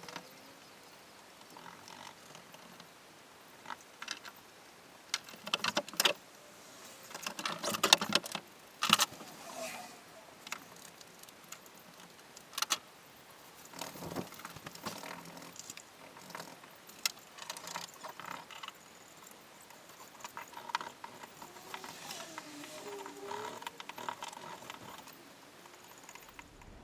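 Scattered clicks, knocks and rustling of hand work with tools and materials on a fibreglass boat hull, with a denser run of louder knocks about eight seconds in.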